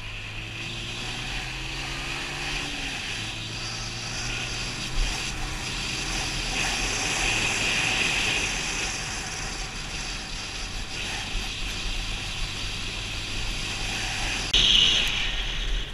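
Mondial 150KT motorcycle's 150 cc engine running as the bike rides along, with steady wind and road noise; the engine note rises in the first few seconds as it pulls away. The wind noise turns abruptly louder near the end.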